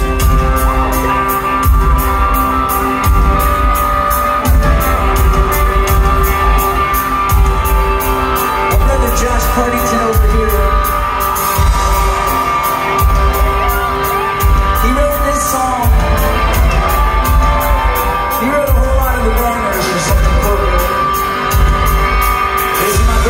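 Live rock band playing: electric guitars and drums keeping a steady beat, with deep bass hits about every second and a half. Singing comes in over the band from about nine seconds in.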